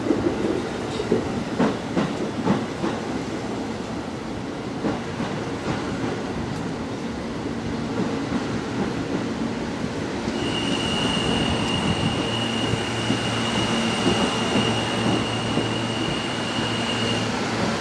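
Kawasaki R160B subway train pulling out of the station, its cars rumbling over the rails as they pass. A steady high-pitched whine comes in about ten seconds in and holds for about seven seconds, over a low hum.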